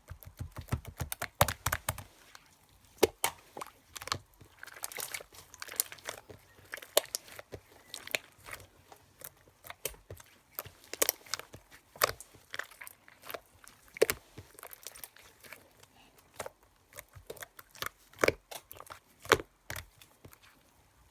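Eraser rubbing on paper and the crumbs being handled: irregular scratchy strokes and small crackles, with several sharper clicks.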